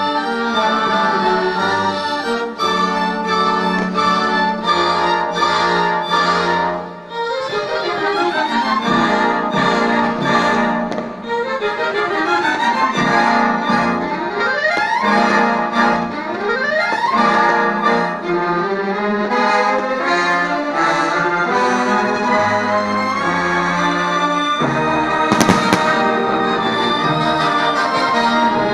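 Orchestral-style music with sustained chords, and sliding pitches in the middle stretch. One sharp crash about 25 seconds in.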